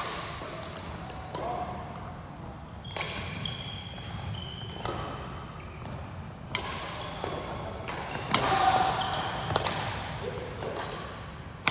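Badminton rally: rackets striking the shuttlecock in a string of sharp hits a second or two apart, echoing in a large sports hall, with short shoe squeaks on the court floor between shots. The busiest, loudest stretch comes near the end.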